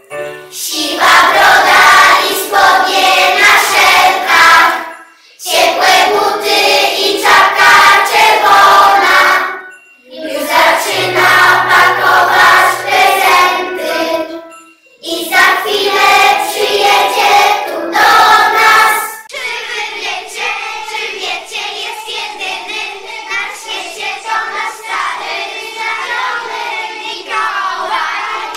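A group of young children singing a Christmas song together in unison: four loud phrases with short breaths between them, then a softer passage for the last third.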